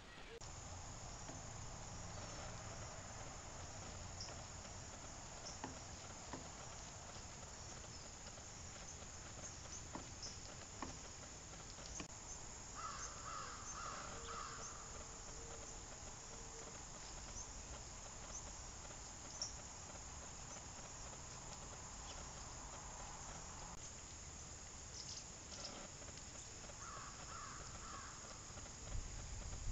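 Steady high-pitched drone of insects, with two short runs of bird calls, about halfway through and again near the end.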